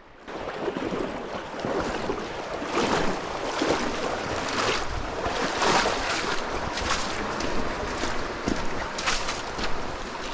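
A fast, high river rushing close by, with wind buffeting the microphone. Footsteps crunch on a gravel and cobble bank and through brush.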